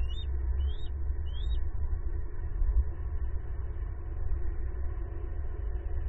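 Steady low outdoor rumble on the nest-cam microphone, with three short rising chirps from a bird in the first second and a half.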